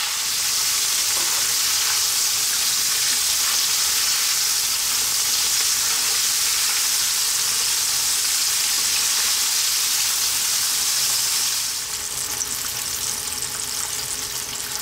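Cornflour-dusted dory fish pieces deep-frying in sunflower oil in a wok: a steady, dense, high sizzle that turns a little quieter and more crackly about twelve seconds in.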